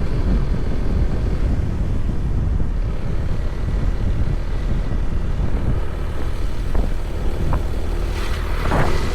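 Wind buffeting the microphone in a steady low rumble, with a brief louder rush of hiss near the end.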